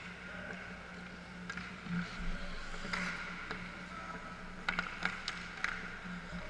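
Ice hockey play in a rink: skates scraping the ice and sharp clacks of sticks hitting the puck and ice, one about three seconds in and several in quick succession around five seconds, over a steady low hum.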